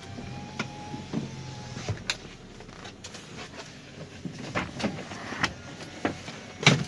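A vehicle on the move, with a steady whine in the first two seconds, then irregular knocks and clicks.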